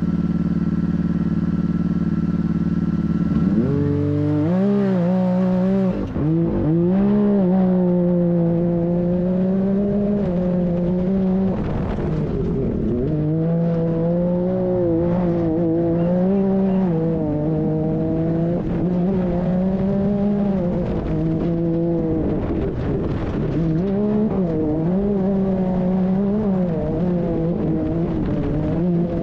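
Can-Am Maverick R's turbocharged three-cylinder engine, heard from the cockpit. It idles steadily for about three and a half seconds, then pulls away hard, its pitch rising and falling again and again as it accelerates and eases off. A rush of wind and tyre noise runs underneath.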